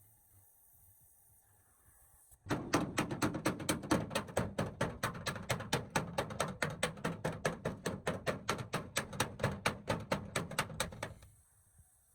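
Rapid, evenly spaced knocks, about five a second, for roughly nine seconds, starting a couple of seconds in and stopping abruptly near the end.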